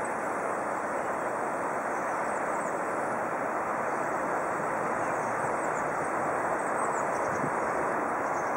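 Steady rushing of flowing river water, with a few faint high chirps above it.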